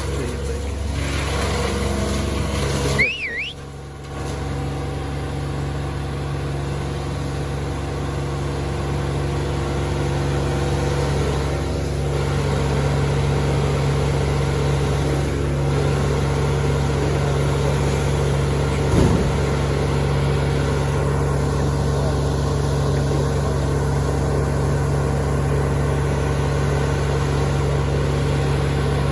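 Large engine running steadily at a constant speed, with a brief drop about three seconds in.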